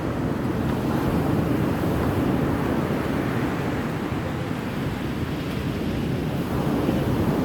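Steady rumble of wind on the microphone mixed with sea surf, with no distinct events.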